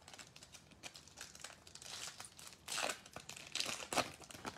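Foil Topps Fire trading-card pack wrapper being torn open and crinkled: a run of crackling rips and rustles, stronger in the second half.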